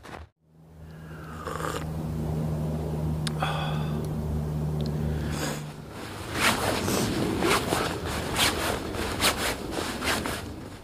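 A steady low hum for the first half, then hammock fabric rustling in quick, repeated swishes as it is stuffed into its stuff sack.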